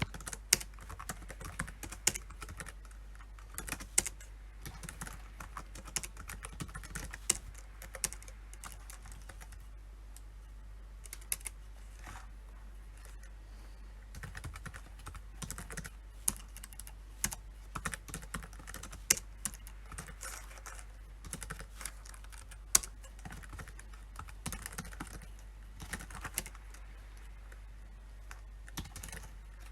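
PC keyboard being typed on in irregular bursts of keystrokes, with a brief lull partway through.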